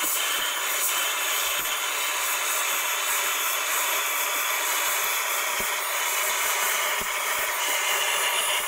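Vacuum cleaner running steadily as its crevice nozzle sucks debris off a mixer's circuit board, with small irregular knocks as the nozzle and debris touch the components.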